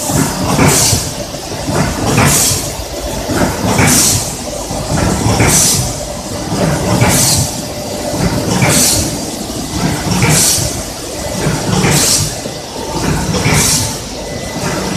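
Fish bean curd production line machinery running, a steady low rumble with a sharp hiss that comes back evenly about every one and a half seconds.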